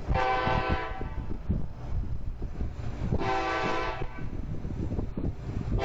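Locomotive air horn sounding two short blasts about three seconds apart, each a chord of several steady tones, over a low rumbling noise.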